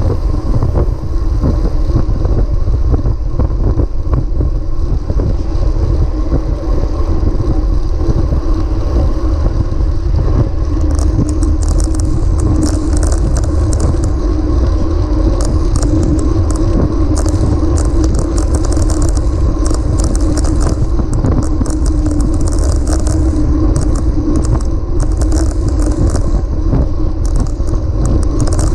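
Steady low rumble of wind buffeting the microphone and tyre noise from a road bicycle riding on pavement. Rapid high ticking joins from about ten seconds in.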